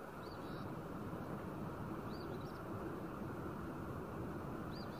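A small songbird calling: a short high chirp phrase repeated three times, roughly every two seconds, over steady low outdoor background noise.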